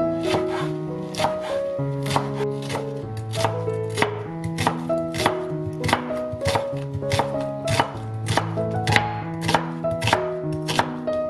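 Chef's knife slicing perilla leaves and then an onion on a wooden cutting board, the blade knocking sharply on the board about two or three times a second. Background music with held notes plays underneath.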